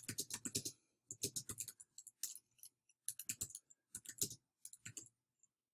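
Computer keyboard typing: runs of quick key clicks with short pauses between them, as a short phrase is typed out.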